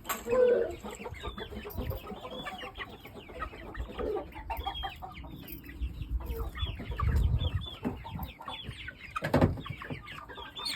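A flock of young game fowl clucking and peeping: many short, quick calls overlapping throughout. A sharp knock comes near the end.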